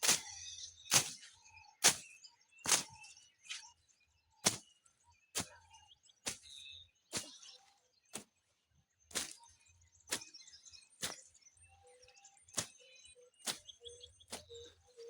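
A hand grass slasher (a long-handled cutting blade) swung repeatedly through overgrown grass and weeds, one sharp cutting stroke about every second in a steady rhythm.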